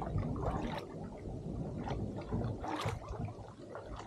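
Paddle strokes from a kayak on calm water: a few short splashes and drips as the double-bladed paddle dips in and lifts out, over a low rumble.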